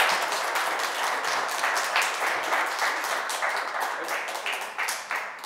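Audience applauding after a talk, a dense patter of many hands clapping that thins out and dies away near the end.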